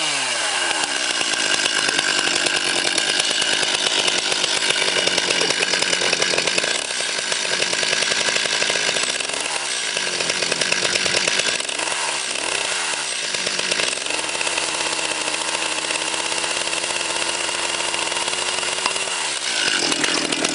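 Two-stroke petrol chainsaw running loud at high revs, its pitch dipping and climbing again several times as the throttle is eased off and opened, then held steady for several seconds before rising near the end.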